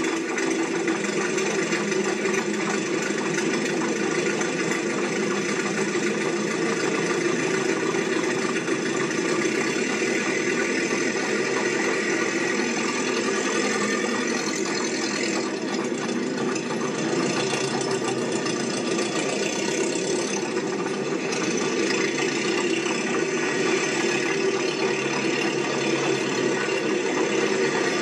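Steady mechanical running noise, engine-like, with some rattle, holding an even level without letting up.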